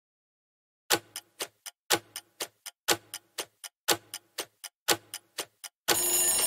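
Clock-like ticking of a countdown-timer sound effect: a loud tick each second followed by a few softer ticks, five times, then a steady buzzing tone when the count reaches zero near the end.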